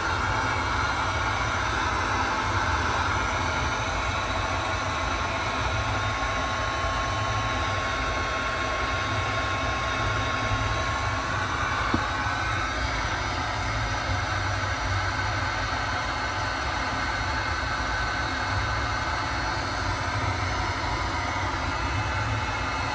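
Steady machine noise: a continuous low rumble with hiss and a faint steady whine, unbroken, with one short click about halfway through.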